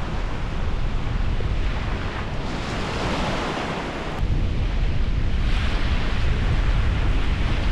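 Gusty wind buffeting the microphone over small waves breaking and washing up a sandy beach, the wash swelling and fading.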